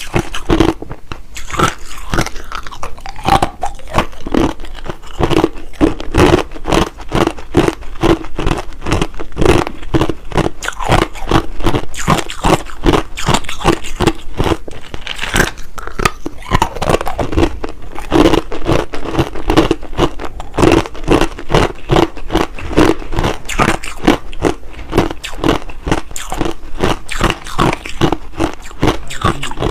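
Close-up biting and chewing of hard, clear crushed ice: rapid, continuous loud crunches as the ice cracks between the teeth.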